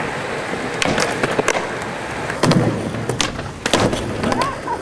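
Skateboard wheels rolling on concrete, with a series of sharp clacks and knocks from the board hitting the ground. The loudest knocks come about two and a half and nearly four seconds in.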